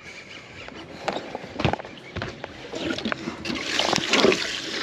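A few scattered knocks of gear being handled on a fishing boat's deck, then water and wind noise that grows louder from about three seconds in.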